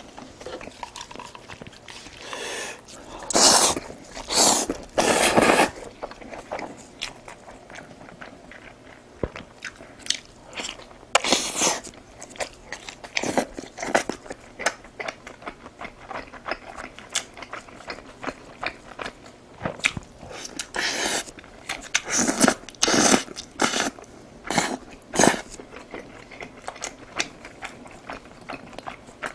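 Close-miked eating: chewing and crunchy bites of food, coming in irregular bursts with a few louder ones.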